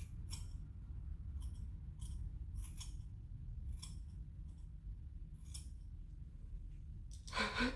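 Scissors snipping through a thick section of straightened hair, about a dozen short, irregularly spaced cuts over a low steady hum. Near the end a short, louder voiced sound.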